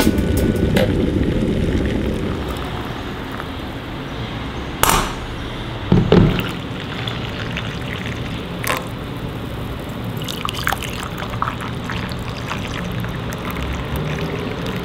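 Oolong tea poured from a teapot into two ceramic mugs in a steady trickling stream, with a few knocks, the loudest about five and six seconds in.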